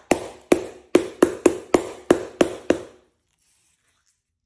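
A steel hammer tapping a cracked glass pane, about nine sharp ringing strikes close together, breaking the glass into a pattern. The strikes stop about three seconds in, and one more sharp knock comes at the very end.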